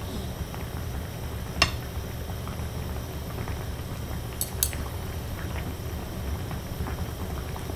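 Pot of salmon simmering on a portable gas burner, a steady low rumble, with a sharp click about a second and a half in and two quick clicks about halfway through.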